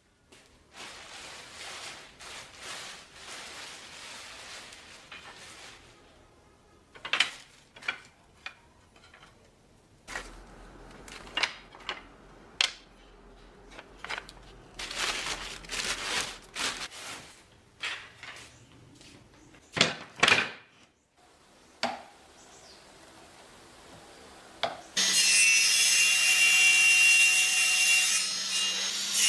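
Hand tools working wood for a bird cage: irregular sawing or rasping strokes and sharp taps. About 25 s in, a small power tool starts and runs steadily and much louder, with a held tone.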